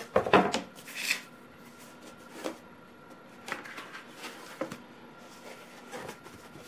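Stiff cardboard game-board sections handled and laid out on a wooden floor. There is a flurry of flaps and rustles in the first second or so, then scattered light taps and shuffles.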